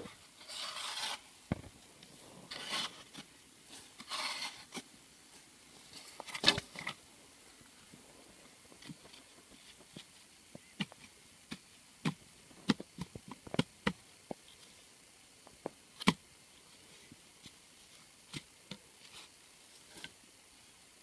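A hoe scraping and digging into dry soil in a few rasping strokes, then scattered sharp taps and knocks as a grid of PVC pipes is handled and set down over the hole.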